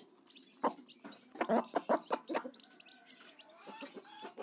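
Newly hatched chicks peeping softly, with a handful of short sharp taps in the middle as the hen and chicks peck at feed crumbs on a dirt floor.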